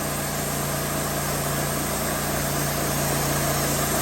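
Woodmizer LT15 portable sawmill's engine running steadily.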